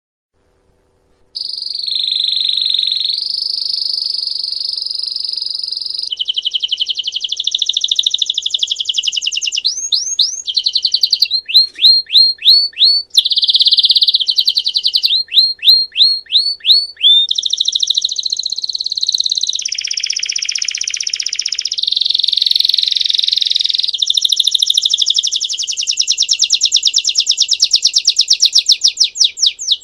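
Belgian canary singing after a short silence, starting about a second in. The song is a long chain of high, rolling trills, broken in the middle by runs of rapid, repeated sweeping notes.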